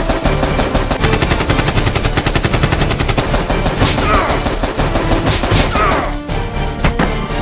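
Rapid automatic gunfire, a machine-gun sound effect, over background music; the burst stops about six seconds in.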